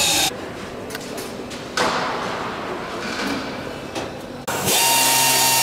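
Power drill running, then stopping about a quarter of a second in; a single clunk about two seconds in that echoes and dies away in a large hangar; near the end the drill starts again, drilling aircraft skin through the fuselage formers.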